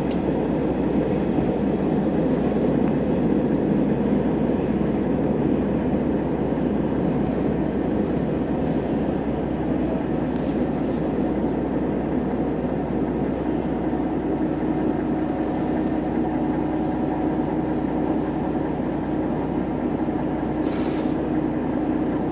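Sanriku Railway diesel railcar running, heard from inside the cabin: a steady rumble of engine and wheels on the rails, with a steady hum coming in about halfway through.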